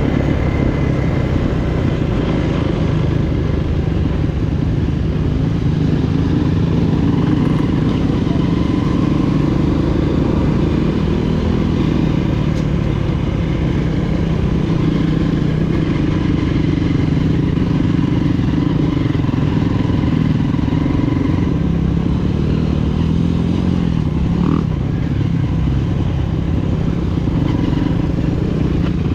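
Freshly overhauled Honda CRF230F's single-cylinder four-stroke engine running steadily, its pitch shifting only slightly.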